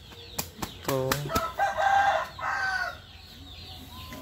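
Fighting cock beating its wings with a few sharp claps, then crowing once, loud and close, for about two seconds.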